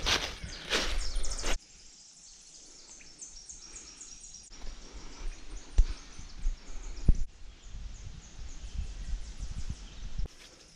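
Footsteps crunching through dry leaf litter on a woodland trail, loudest in the first second and a half, then quieter walking with low thumps and two sharp knocks. A bird sings a quick series of high notes a few seconds in.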